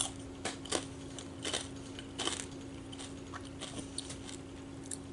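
A person chewing food close to the microphone, a short string of crunches and mouth clicks that thin out after the first two and a half seconds, over a steady low hum.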